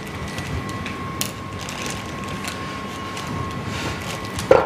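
Plastic piping bag crinkling and rustling in gloved hands as thick choux pastry batter is scraped and pushed into it, with scattered small clicks over a steady background hum.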